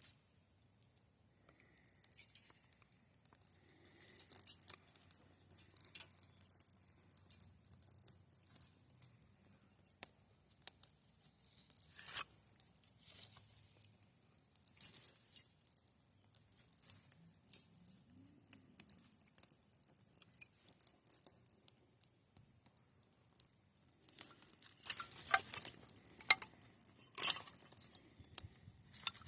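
Campfire burning, the wood crackling with irregular sharp pops, busiest about twenty-five seconds in.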